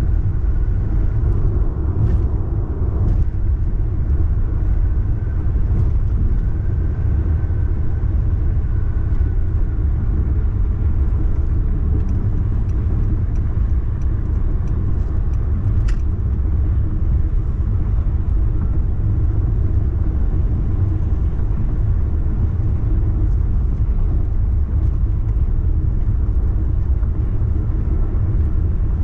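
Car travelling along a highway: a steady low rumble of road and engine noise that holds even throughout, with one brief sharp click about halfway through.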